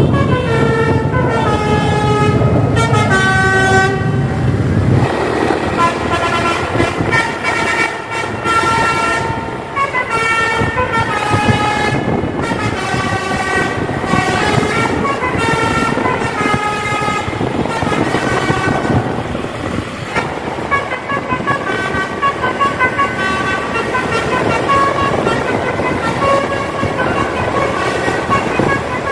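A bus's Basuri telolet horn plays runs of short stepped notes, several tones sounding together, climbing and falling like a tune, over vehicle and road noise. A heavy low rumble runs under the horn for the first five seconds or so, then drops away.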